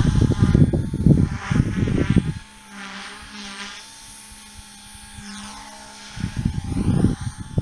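Electric OXY 3 RC helicopter with a three-blade main rotor and three-blade tail rotor flying aerobatics, its motor and rotors giving a steady whine that wavers slightly in pitch. Irregular rumbling gusts of wind on the microphone cover the first couple of seconds and return about six seconds in, louder than the helicopter.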